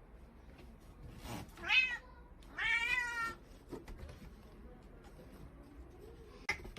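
Domestic cat meowing twice: a short meow falling in pitch, then a longer meow about a second later.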